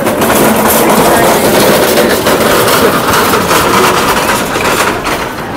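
Metal hand cart rolling close by over rough pavement, its wheels and frame rattling loudly and steadily.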